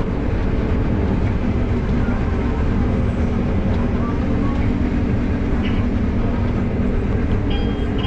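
Steady drone of a Case IH Axial-Flow combine heard from inside its cab while it harvests soybeans, engine and threshing machinery running under load. A short high beep sounds near the end.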